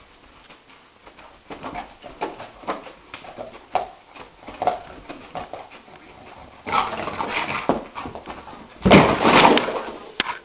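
A dog dreaming in its sleep: soft muffled yips and scuffles as it paddles its legs on the carpet, growing busier, then a loud burst of scrambling about nine seconds in as it leaps up and runs.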